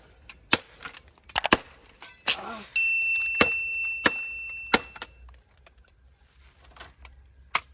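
A series of sharp, short knocks, irregular at first and then three evenly spaced about two-thirds of a second apart. A thin, high steady tone sounds for about two and a half seconds in the middle.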